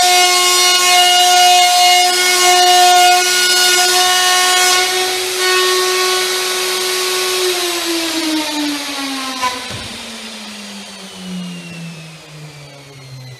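Hitachi plunge router on a trammel cutting an arc through sheet board: a high, steady motor whine with rough cutting noise for about five seconds. It then runs free and is switched off about seven seconds in, its whine falling steadily in pitch and fading as the cutter winds down.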